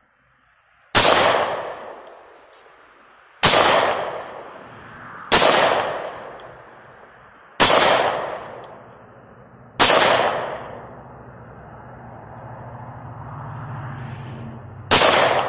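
Smith & Wesson M&P .40 S&W pistol firing six single shots, about two seconds apart with a longer pause of about five seconds before the last, each shot followed by a decaying echo.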